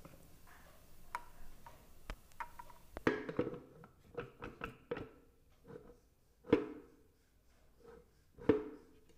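Clicks and knocks of hard plastic parts being handled and fitted: the Preethi Zodiac mixer grinder's food-processor jar, chopper blade, lid and pusher cup being put in place. A string of light taps, with two louder knocks, the second near the end.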